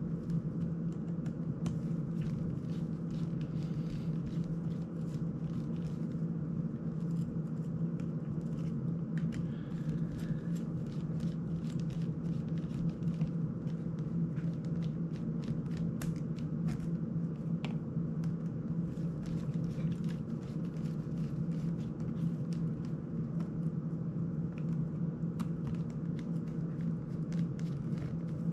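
A steady low hum, with scattered light clicks and scrapes from a small screwdriver working the screws of a small FPV drone.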